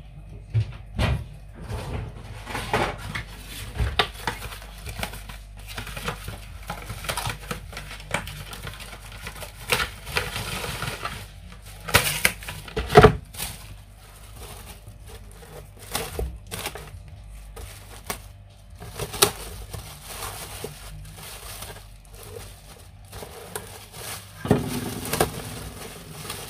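Plastic cling film rustling and crinkling in irregular bursts of handling as it is stretched over a towel-covered wicker proofing basket.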